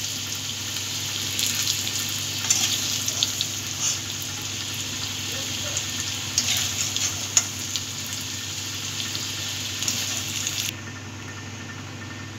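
Turmeric-coated potato cubes sizzling and crackling in hot oil in a kadai, with scattered clicks as a metal spatula lifts them out. About eleven seconds in, the crackling sizzle drops away to a quieter, steady hiss.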